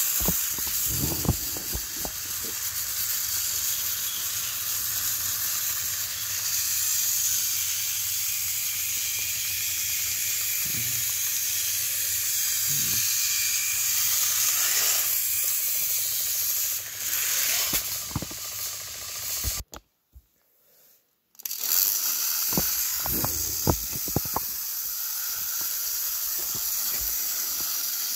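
Motorized Thomas & Friends toy trains running along plastic track, a steady high whirring hiss with a few low knocks. The sound cuts out briefly about twenty seconds in.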